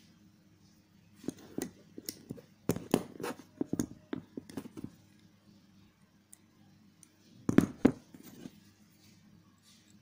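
Small tools working thin jewelry wire, most likely pliers: a run of irregular sharp clicks and taps, then a second, shorter cluster near the end that holds the loudest knock.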